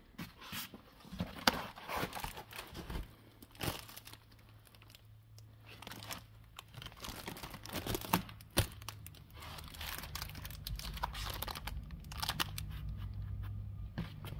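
Irregular crinkling and rustling with scattered sharp clicks and knocks. About halfway through, a steady low hum comes in underneath and grows a little louder toward the end.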